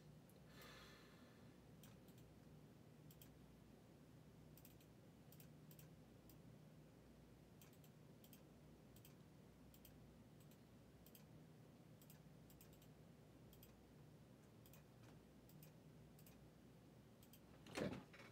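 Near silence with faint, scattered computer mouse and keyboard clicks, about one or two a second, and a short louder sound near the end.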